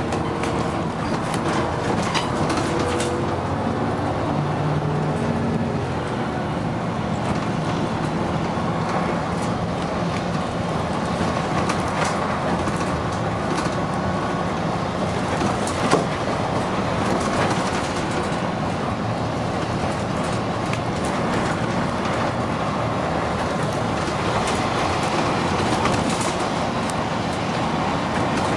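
Dennis Arrow double-decker bus on the move, heard from inside: a steady engine and road rumble with rattles, a few brief pitched tones in the first few seconds, and a single sharp knock about halfway through.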